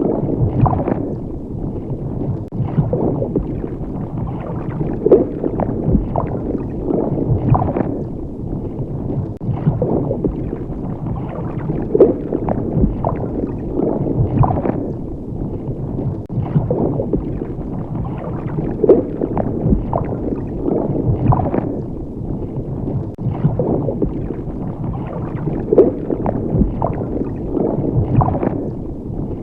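Water bubbling and gurgling: a steady low, muffled churn of bubbles with frequent short bloops and pops.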